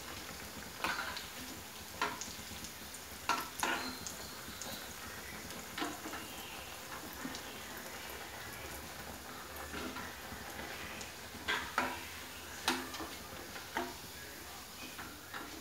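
Kothimbir vadi slices deep-frying in hot oil in a metal kadhai: a steady sizzle, with scattered light clinks of a slotted spoon against the pan as the pieces are turned.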